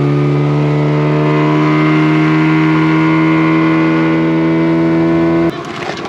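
Boat outboard motor running under way at a steady, even pitch, loud and close, then dropping away abruptly about five and a half seconds in.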